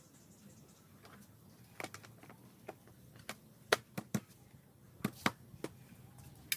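A series of about ten sharp, irregular clicks and knocks, like small hard objects being handled or tapped, starting about two seconds in.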